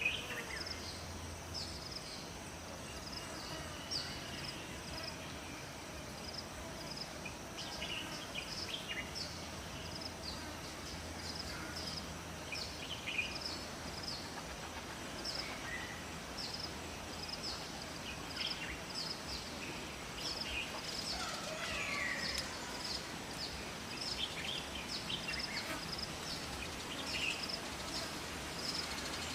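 Forest ambience: a short high chirp repeating steadily, with scattered bird calls over it, one of them a falling call about twenty-two seconds in, above a faint steady hiss.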